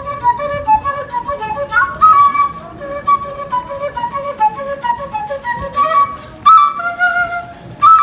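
A busker playing a melody on a vertical, end-blown wooden flute: single held notes moving up and down, with a light street hum underneath.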